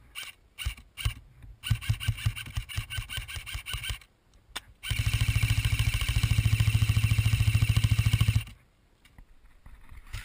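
Airsoft guns firing: a few single shots, then a quick string of shots, then after a short pause a loud, steady full-auto burst of about three and a half seconds. The guns' motor and gearbox make an even, fast rattle.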